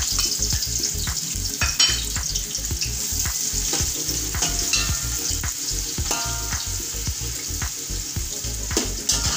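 Sliced onions sizzling in hot oil in a metal pot, with a steady hiss, while a metal spatula stirs them, scraping and knocking against the pot and now and then giving a short ringing clink.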